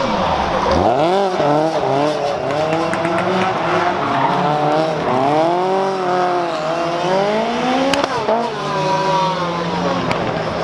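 Lancia 037 Group B rally car's supercharged four-cylinder engine driven hard, its revs climbing and falling several times through gear changes and lifts.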